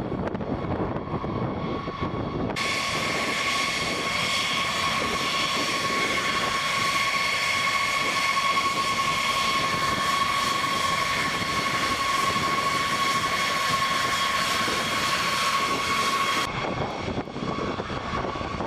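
B-52H bomber's turbofan engines running at taxi power: a steady high whine over a rushing hiss. The sound turns brighter and closer for most of the middle stretch, then drops back near the end.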